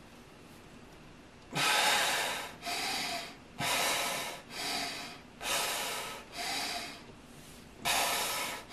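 A man breathing deeply and rhythmically under exertion while holding a wall slide: after a quiet moment, about four breath cycles, each a louder rush of air followed by a softer one, roughly one breath a second.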